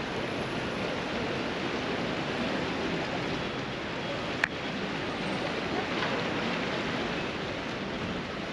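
Open city-square ambience: a steady wash of traffic and many people's distant voices, with one sharp click about four and a half seconds in.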